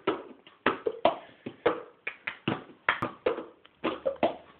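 Cup song rhythm played by hand: claps mixed with a cup being knocked, slapped down and lifted on a tray, in a quick repeating pattern of sharp hits.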